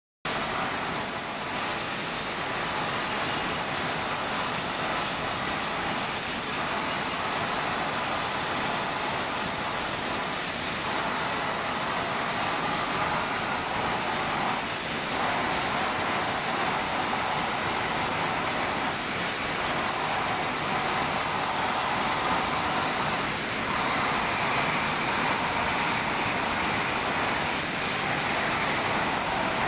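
Steady, loud hiss of gas burner flames and glass-forming machinery in a glassworks, with a faint pulse repeating about every four seconds as the machine cycles.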